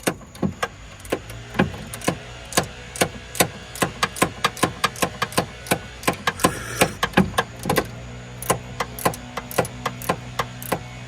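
Ratcheting box-end wrench clicking over and over as it loosens a 10 mm bolt, a few sharp clicks a second in uneven runs. A steady low hum joins in about halfway through.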